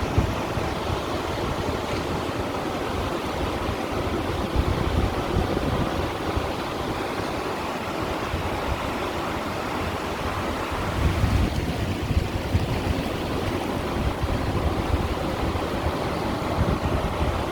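Sea water washing against stones at the shore, a steady rush of surf. Wind rumbles on the microphone in gusts, strongest about eleven seconds in.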